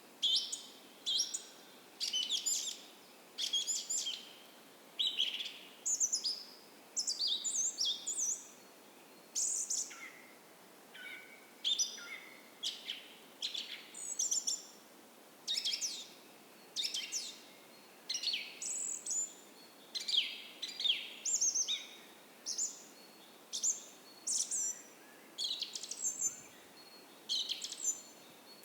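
Songbirds singing in a dawn forest: short, high-pitched chirping phrases follow one another about once a second, over a faint steady hiss.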